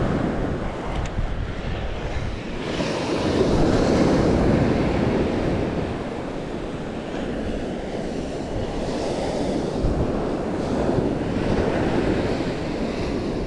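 Surf breaking and washing up a sandy beach, with wind buffeting the microphone. The wash swells and eases as waves come in, loudest about four seconds in and rising again near the end.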